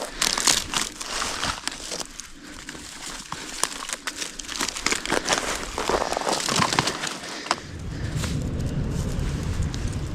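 Irregular crinkling and crackling with sharp clicks, like material being handled and crumpled. About seven and a half seconds in, a steady low rumble of wind on the microphone sets in.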